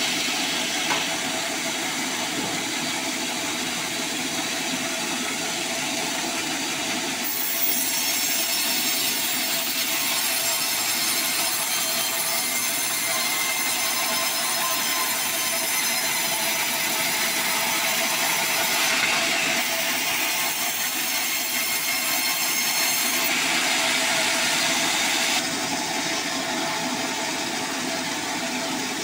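Large vertical band saw running, its blade ripping lengthwise through a log on the carriage: a steady sawing noise that grows louder and brighter about seven seconds in and drops back a few seconds before the end, as the cut finishes.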